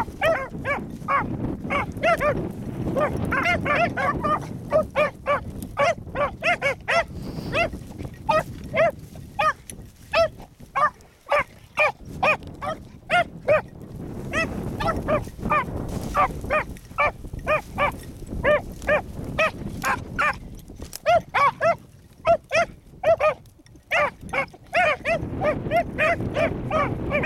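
Two young beagles baying on a rabbit's scent trail: a steady string of short, high yips, a few a second, easing off briefly twice. Wind rumbles on the microphone underneath.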